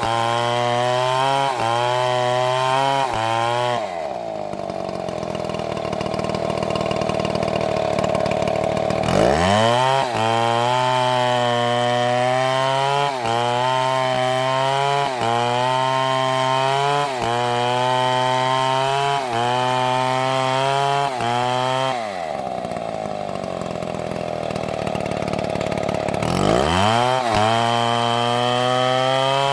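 Two-stroke chainsaw running at high revs, its pitch sagging briefly about once a second. Twice it drops back to a lower steady idle for several seconds and then revs sharply up again.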